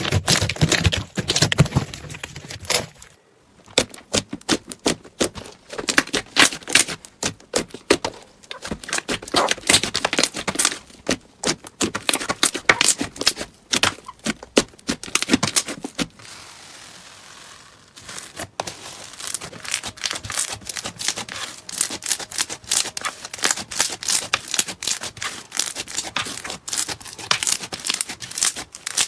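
Slime being squeezed and poked by hand, giving a dense, irregular run of crackling clicks and pops, broken just past the middle by about two seconds of quieter hiss.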